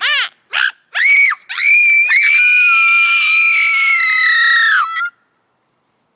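A girl's high-pitched vocal noises, made for fun: a few quick squeals that sweep up and down, then one long held scream of about three seconds that stops suddenly near the end.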